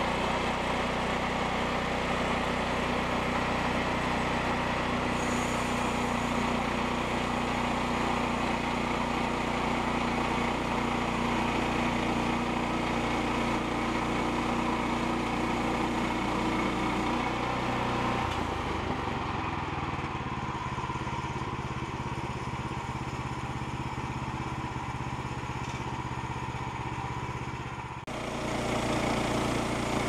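Small gasoline engine of a Woodland Mills portable bandsaw mill running steadily under load as the band blade saws through a log. Its tone shifts about two-thirds of the way through, and there is a sudden break near the end.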